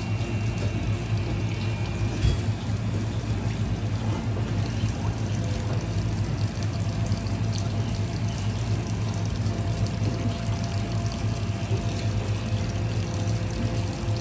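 Tap water running steadily over a constant low hum.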